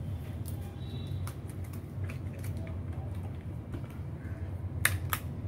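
Light scattered clicks and taps of a rubber-banded phone being handled on a hard work surface, with two sharper clicks close together near the end, over a steady low hum.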